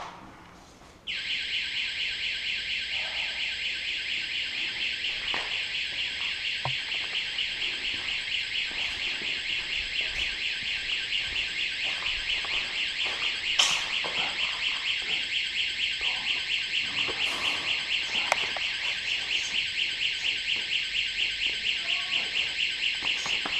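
An electronic alarm switches on suddenly about a second in and keeps sounding: a loud, shrill, high tone pulsing rapidly. A single sharp crack cuts through it a little past halfway.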